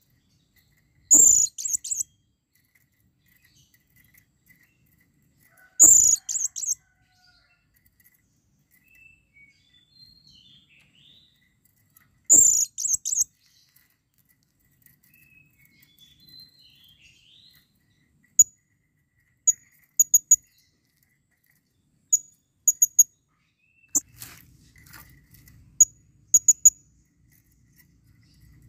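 Blue-crowned hanging parrot (serindit) giving shrill, very high calls: three short bursts of rapid chattering about five seconds apart, each opening with a dull knock, then in the last third a run of sharp single and paired chirps. These are the calls of a bird in breeding condition, calling to a female.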